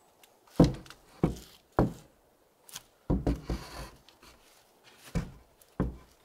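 A wooden ladder knocking against a wooden board wall as it is set in place: about six dull thunks, with a quick cluster of them in the middle, one followed by a brief scrape.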